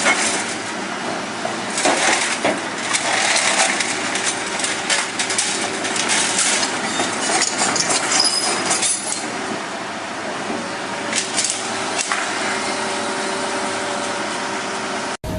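Heavy machinery crushing and breaking up a scrap car: dense crunching and clattering of metal and debris with many sharp knocks. It cuts off suddenly near the end.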